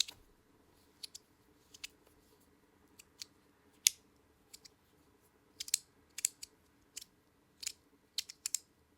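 Stainless steel haptic fidget coin clicking as it is worked in the fingers: sharp, irregular metallic clicks, some in quick pairs, the loudest about four seconds in.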